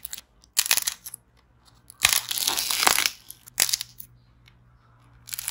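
Dried white clay from a fake cream dessert cracking and crumbling as it is squeezed and torn apart by hand. There are short bursts of cracking, with a longer run of crackling from about two to three seconds in.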